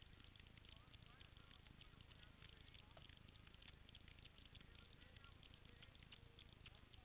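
Near silence: faint outdoor background with scattered soft clicks.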